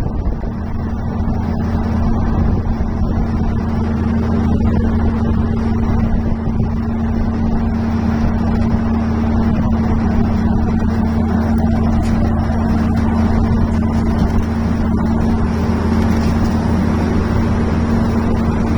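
Engine running steadily at a constant speed, a continuous low hum with no change in pitch.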